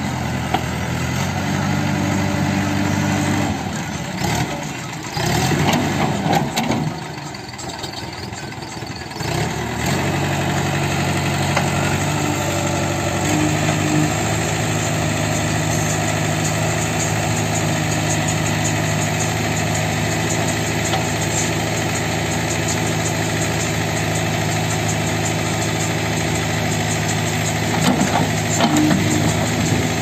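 JCB backhoe loader's diesel engine running steadily while working the backhoe's hydraulics. From about four seconds in, the steady note gives way to a rougher, noisier stretch for several seconds, then the steady running resumes.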